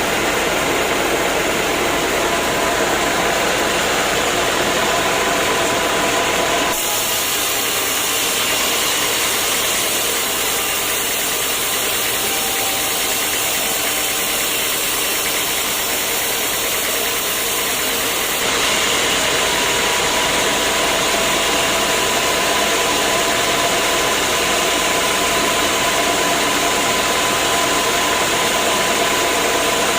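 Sawmill machinery running with a loud, steady mechanical noise and a faint steady whine. The sound changes abruptly twice.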